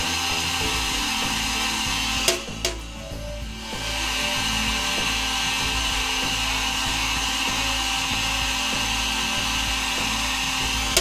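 Heat gun on its high setting blowing steadily, a hair-dryer-like rush of air with a hiss, aimed at a processor to soften the solder under its gold pins. About two seconds in come two sharp taps, and the blowing is briefly quieter before it steadies again.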